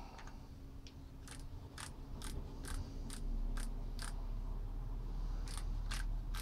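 Torque wrench clicking on the cylinder head bolts of a Ford 3.0 L pushrod V6 during the final tightening step of the head-bolt sequence: a run of sharp clicks about two a second, a pause, then more clicks near the end.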